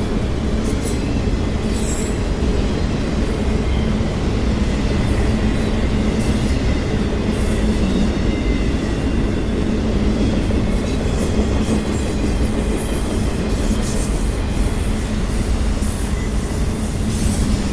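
Freight train of autorack cars rolling steadily past: a continuous rumble of steel wheels on rail, with a faint high wheel squeal and scattered clicks over the rail.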